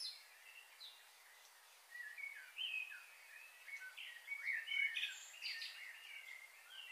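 Small birds chirping: a quick run of short, sliding high notes that starts about two seconds in, after a brief lull.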